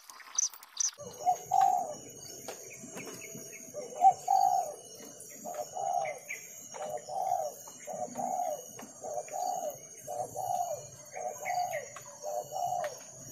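Dove cooing: a low, repeated coo about once a second, about ten calls in all, with a thin steady high-pitched tone in the background.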